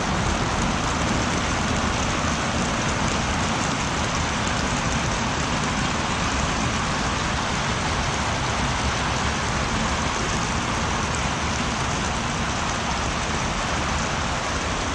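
Steady rain falling on the greenhouse, heard from inside it.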